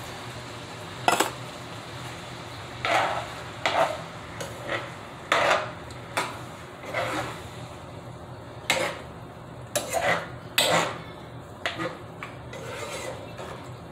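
A cooking utensil knocking and scraping against a skillet as ground beef and sloppy joe sauce are stirred, in irregular clanks about once a second.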